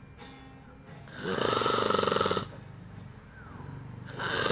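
A man snoring in his sleep with rattling snores, each about a second and a half long and coming roughly every three seconds. One full snore comes about a second in, and the next begins near the end.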